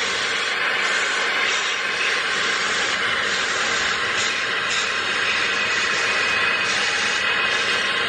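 Cubien cordless handheld car vacuum running steadily with a crevice nozzle, drawing sand out of the holes of a honeycomb car floor mat: an even rush of air and motor with no change in level.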